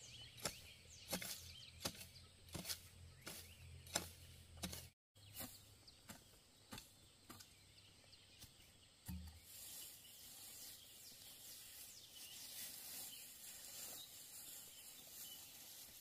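A garden hoe chopping into dry soil in steady strokes, about one every 0.7 s, for the first five seconds. After a short break come a few scattered knocks, then soft steady rustling.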